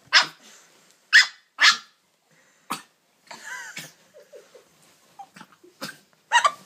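Yorkshire terrier coughing: a string of short, sharp coughs, the three loudest close together in the first two seconds, then a few weaker ones spaced further apart.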